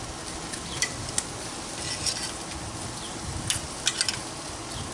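Boneless chicken and sausages sizzling on a hot charcoal grill grate, a steady hiss. Metal tongs click sharply against the grate and meat a few times as the chicken pieces are turned.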